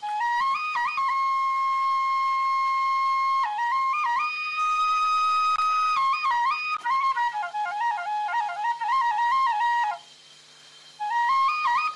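Background music: an unaccompanied flute melody with long held notes, then quicker ornamented runs. It breaks off for about a second near the end and comes back in.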